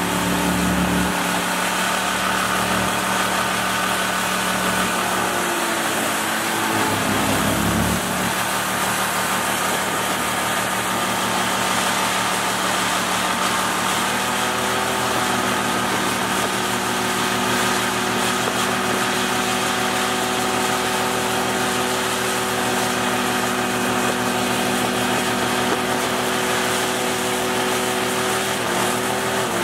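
Tiller-steered boat motor running under way, a steady engine drone with wind and water rush. Its pitch wavers and shifts a few seconds in, then holds steady.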